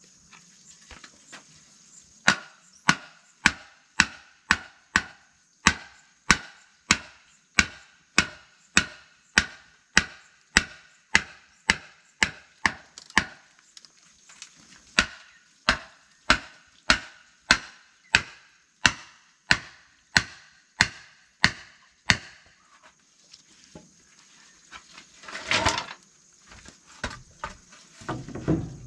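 A blade chopping steadily into wood, about two strokes a second, each with a short ringing knock, with one brief break partway through. Near the end the chopping stops, and a scraping rustle and a dull thump follow.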